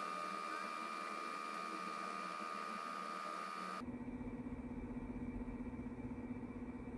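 A steady hum with a high whine. About four seconds in the whine cuts off abruptly and a lower steady hum with a low rumble takes over.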